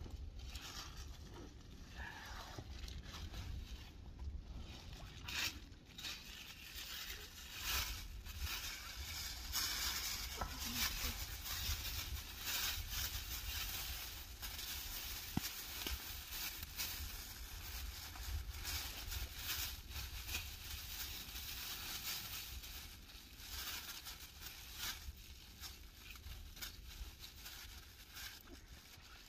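Irregular rustling and crunching noise that swells and fades every second or two, over a steady low rumble.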